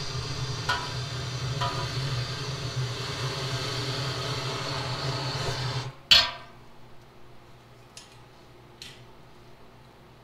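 Blowtorch flame hissing and rumbling steadily while heating a stainless keg fitting to melt the solder, then shut off a little past halfway once the solder has flowed. One sharp clack follows the shut-off, then a few faint ticks.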